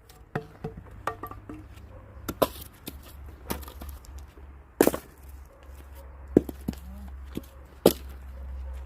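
Axe chopping firewood: sharp strikes on wood, the three hardest coming about two and a half to three seconds apart, with lighter knocks in between, over a low steady rumble.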